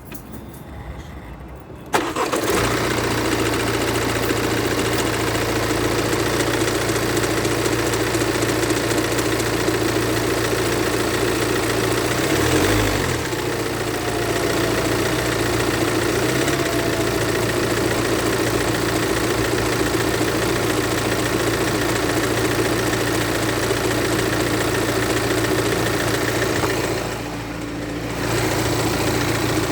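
BMW 218d's B47 2.0-litre four-cylinder diesel engine starting about two seconds in, then idling steadily with a clattering noise. The level dips briefly about halfway through and again near the end.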